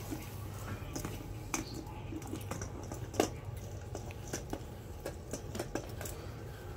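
Light scattered clicks and taps of a small dog's claws on a parquet floor as it moves about, with one sharper tap about halfway through, over a low steady hum.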